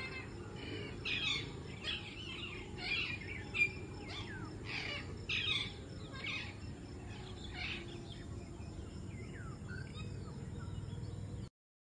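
Small birds chirping: a run of short calls, many falling in pitch, thick over the first seven seconds and sparser after, over a steady low rumble. The sound cuts off suddenly near the end.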